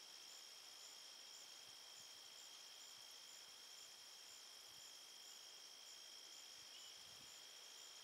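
Faint, steady high-pitched singing of insects in summer vegetation, with a fainter higher chirp repeating about twice a second.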